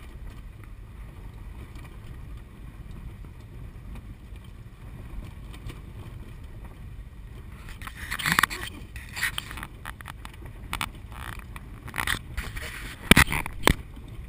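Suzuki mini truck heard from inside the cab on a bumpy gravel track: a steady low rumble of engine and tyres. In the second half, a string of sharp knocks and rattles as the truck jolts over bumps, the loudest about eight seconds in and again near the end.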